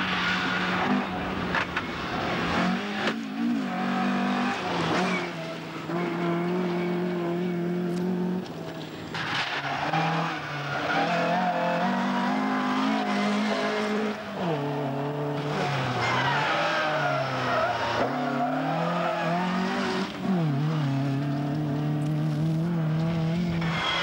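Ford Escort rally car with a 1600cc stage 3 engine, driven flat out on gravel. The engine pitch climbs hard and steps down at each gear change over several passes, with the tyres sliding and spraying gravel.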